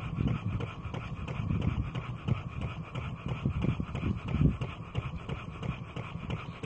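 Model vertical single-cylinder steam engine running on steam, its exhaust chuffing in a steady quick rhythm. It is picking up speed slightly as the boiler pressure rises, on its first steam run after an overhaul.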